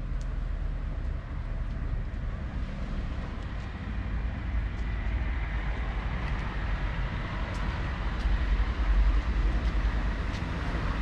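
Steady low outdoor rumble of road traffic mixed with wind on the microphone, with a few faint ticks.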